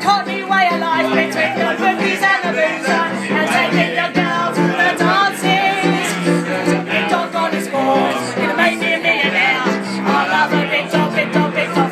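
A woman singing a cabaret-style pub song over a rhythmic piano accompaniment.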